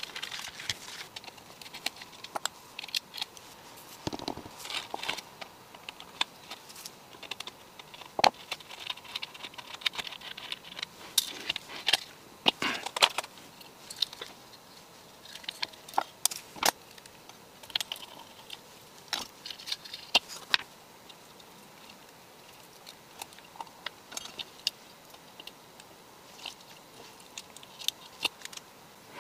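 Scattered small clicks, taps and rustles of hands working on an electronics circuit board: lifting it out of its plastic case, handling it and laying tape onto it.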